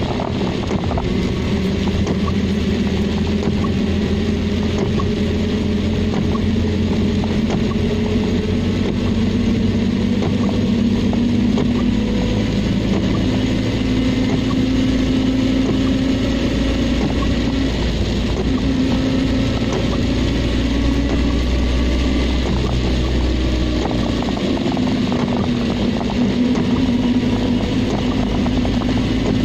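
Car engine running and tyre noise on a wet road during rain, heard from inside the cabin: a steady hum whose pitch shifts a little as the car changes speed, over an even wash of road and rain noise. The low rumble eases about three-quarters of the way through.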